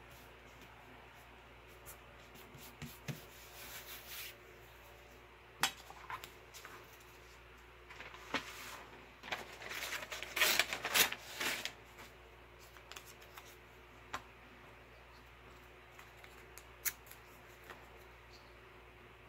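Scissors cutting paper, with paper being rustled and handled on a tabletop. There are scattered light clicks and taps, and a dense run of cuts and rustling about ten seconds in, which is the loudest part.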